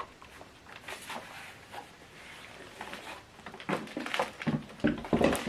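Handling noise of a power cable being fitted into a soundbar's AC inlet: light rustling with scattered small clicks and knocks, busier in the last couple of seconds.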